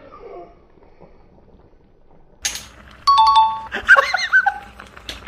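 An edited-in two-note chime sound effect, a higher note stepping down to a lower one, about three seconds in, followed at once by a short warbling sound effect that slides up and down in pitch. A few sharp clicks come near the end.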